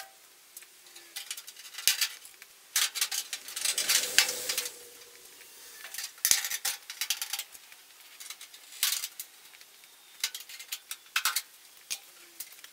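Sheet-metal clecos being pushed into holes with cleco pliers to pin a steel wheel-arch panel to a car body: irregular sharp metallic clicks and clinks in quick clusters. The loose sheet rattles, most densely about three to four and a half seconds in.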